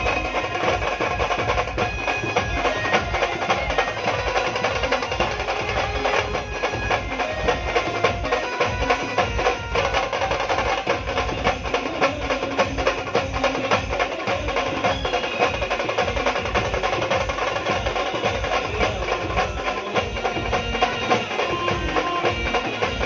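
A live band playing an uptempo folk song: fast, dense drumming under a sustained melodic lead.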